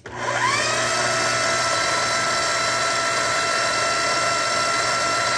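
Electric blender's motor spinning up to speed with a quickly rising whine, then running at a steady high pitch while puréeing strawberries with sugar and lemon juice.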